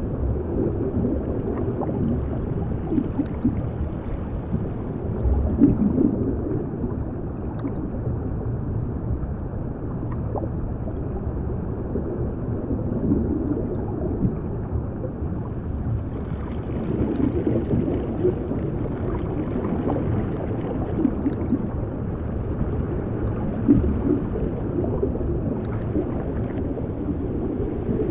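Muffled underwater bubbling and gurgling, as heard below the surface, with no high end and irregular swells. It is meant as the sound of someone drowning.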